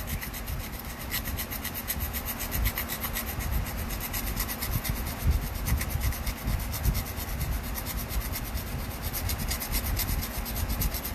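A flexible carving-knife blade scraping in quick, even back-and-forth strokes on 220-grit sandpaper glued to a wooden strop paddle. The blade's back is being ground down to reshape a broken-off tip.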